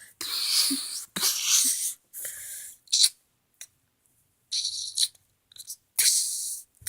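A child's mouth-made sound effects for a toy grenade launcher: a string of short, breathy "kshh" hisses like blasts or explosions, about six of them spaced a fraction of a second to a second apart.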